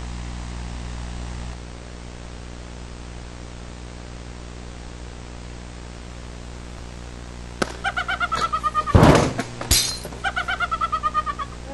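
Steady hiss and hum, then about three-quarters of the way in a rapid run of high squeaky chattering pulses, about eight a second and each falling slightly in pitch. Two loud crashes, like something being knocked over and breaking, are followed by another run of squeaks.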